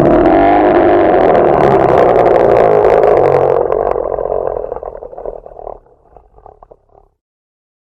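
Bear roaring: one long, loud, rough roar that weakens and breaks up into short broken pulses, dying away shortly before the end.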